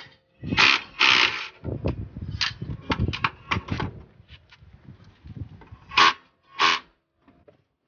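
Irregular scrapes, rustles and knocks of hand work on the front strut assembly, with a sleeve brushing close to the microphone. There are two sharper scraping bursts about six and six and a half seconds in.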